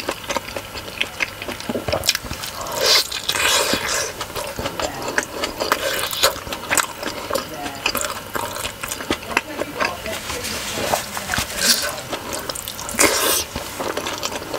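Close-miked wet chewing of a juicy steamed pork momo with tomato achar: lip smacks and many sticky mouth clicks. Two longer, louder wet mouth noises come about three seconds in and near the end.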